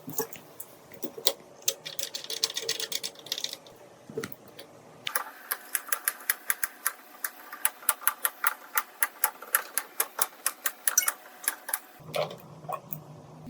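Keys of a keyboard typed in a steady run of sharp clicks, about four to five a second, from about five seconds in to about twelve; before that, scattered clicks and light handling.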